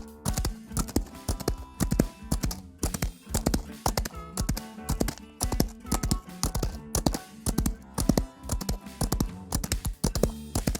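Horse hooves clip-clopping in quick, irregular strikes over background music.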